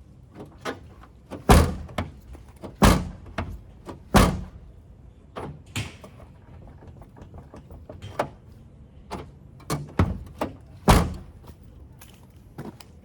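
Mitsubishi Pajero Mini's rear door being worked: heavy thunks of the door shutting and its latch catching, three about a second and a half apart, then two more near the end, with lighter latch clicks in between.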